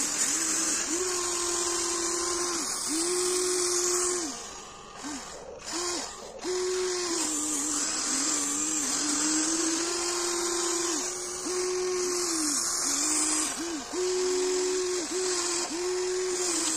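Electric linear actuators of a Huina 1594 RC excavator whining as it digs packed gravel. The motor tone switches on and off in stretches of one to two seconds, dipping in pitch at each start and stop, with a quieter pause a few seconds in.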